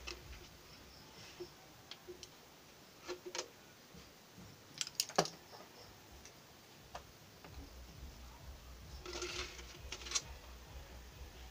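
Light clicks, taps and crackles of a thin clear plastic bottle being handled and set against a wooden table, with a quick run of sharper taps about halfway through and a crackling cluster near the end.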